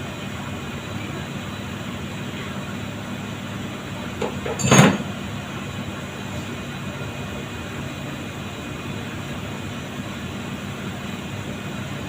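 A single loud knock about five seconds in, over a steady background hum, from hand work on an alternator that is being taken apart without a puller.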